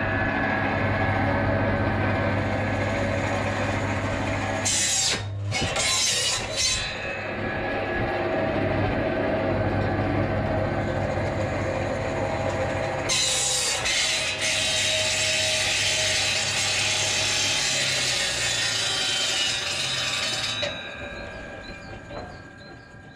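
Sawmill machinery running with a steady low motor hum and mechanical clatter. A louder hiss joins about 13 seconds in and dies away about 21 seconds in.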